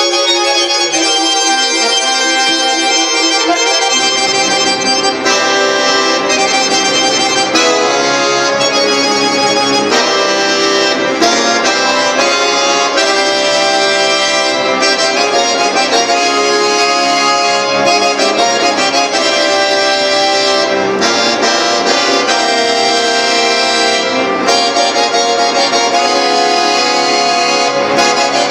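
A bayan (Russian chromatic button accordion) played solo, sounding full chords across its range. The low bass notes come in about four seconds in and carry on under the chords.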